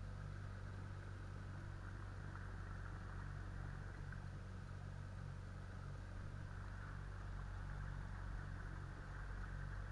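Small outboard motor running steadily at a constant speed, heard from aboard the inflatable boat it drives: a low, even hum.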